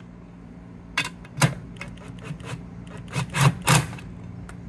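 Steel battery mounting bracket being shifted by hand against the battery's steel case and a wooden pallet. A few sharp knocks and scrapes, one about a second in and a cluster about three seconds in.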